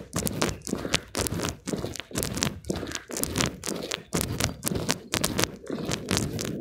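Footsteps crunching on a frost-covered path at a steady walking pace, about two steps a second, over a low rumble.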